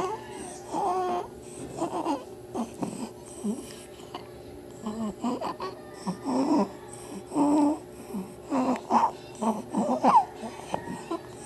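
Baby with laryngomalacia fussing, giving short cries and noisy, pitched breaths in uneven bursts: the stridor of a floppy larynx.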